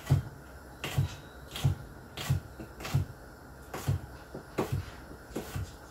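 Knife chopping hot chili peppers (jalapeños, serranos and Thai chilies) on a cutting board: a steady run of about eight knocks, roughly one every two-thirds of a second.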